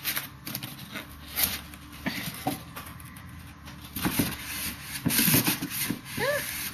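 Hands handling a new laptop's packaging: rubbing, rustling and light knocks of cardboard and plastic. A short squeak rises and falls near the end.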